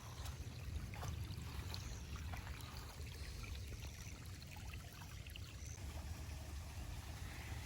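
Storm runoff water flowing and trickling down a creek draw, over a steady low rumble, with a few faint ticks.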